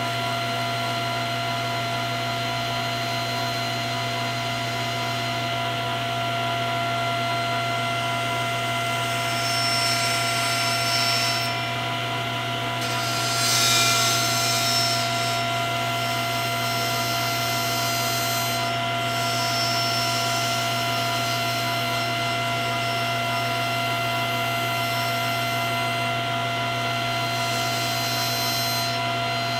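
Table saw running with a steady hum, its blade cutting into the back of a length of painted wooden molding passed across it to rough out a coped joint. The cutting gets louder about ten seconds in and again around fourteen seconds.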